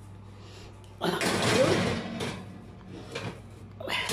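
A glass baking dish is slid onto a metal oven rack: a scraping rattle about a second in, lasting about a second, then a smaller knock and another clunk near the end, over a low steady hum.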